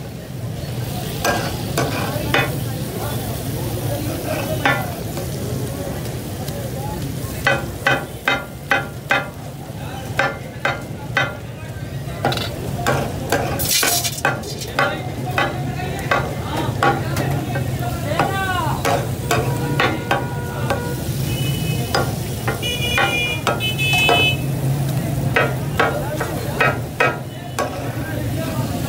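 Metal spatulas clattering and scraping on a large tawa griddle as chicken pieces sizzle in oil, with runs of rapid strokes and single knocks. A steady low hum runs underneath.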